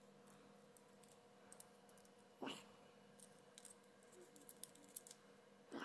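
Near silence: a faint steady hum with a few small, scattered clicks of handling, and one brief louder sound about two and a half seconds in.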